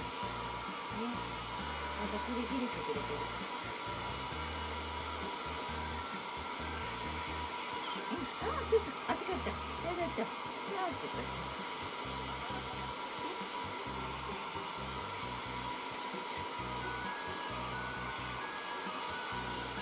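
Hand-held hair dryer blowing steadily with a constant whine, drying a freshly shampooed kitten's wet fur. A few short sounds with sliding pitch break in about halfway through.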